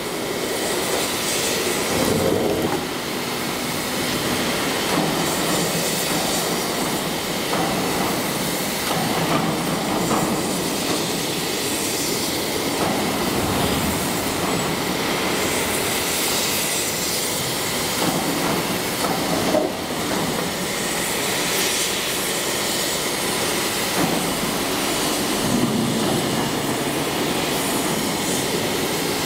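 Four-roll CNC hydraulic plate rolling machine running, its rolls turning and bending a steel plate: a steady mechanical noise that swells a little now and then.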